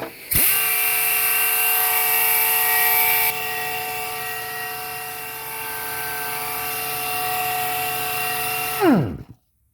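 Dynabrade DynaBelter pneumatic 2" x 30" belt sander running free on compressed air: it spins up quickly to a steady high whine with hissing exhaust air. The hiss eases about three seconds in, and near the end the whine falls in pitch as the sander winds down and stops.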